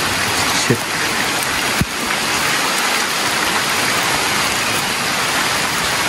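Steady rain falling: a dense, even hiss, with a single short knock just under two seconds in.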